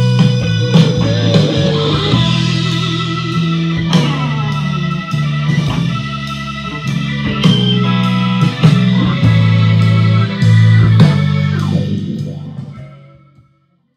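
Rock music with guitar and drums playing through a Gradiente STR-1050 stereo receiver and its loudspeakers, fading out shortly before the end.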